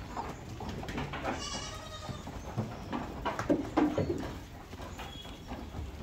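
Goats of a Sojat and Patira breeding herd bleating in their pen: one call about a second and a half in, then a few shorter bleats between three and four seconds.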